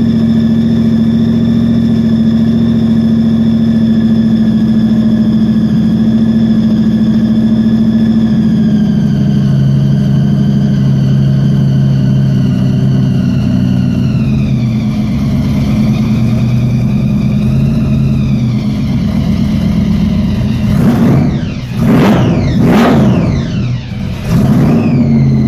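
A 1969 Corvette Stingray's numbers-matching 427 big-block V8 with a Weiand supercharger and two carburetors, idling while it warms up after a cold start. The idle settles to a lower speed about nine seconds in. Near the end the throttle is blipped in a few quick revs.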